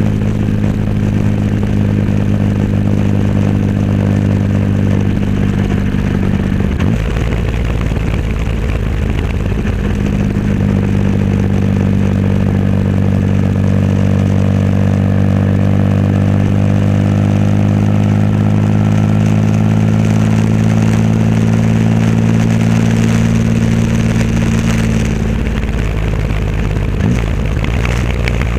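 Triumph Rocket III Roadster's inline-three engine running through a custom exhaust at a steady riding pace. The note breaks briefly about seven seconds in and again near the end.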